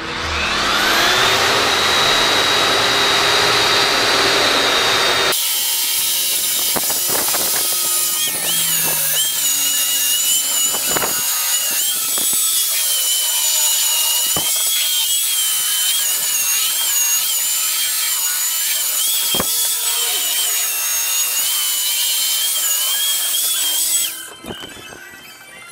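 A handheld electric power tool starts up with a rising whine and runs steadily, then about five seconds in its sound changes to a wavering high whine with hiss as it works the edge of a fiberglassed foam deck panel. It cuts off near the end.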